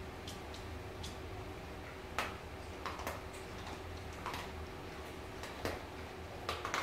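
Scattered light clicks and crunches, irregularly spaced about a second apart with a small cluster near the end: a pet eating dry food.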